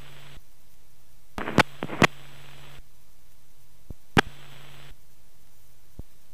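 Steady hiss of a light aircraft's radio and intercom audio feed with no one talking, with a few sharp clicks. Twice a low hum with a brighter hiss comes on briefly and cuts off.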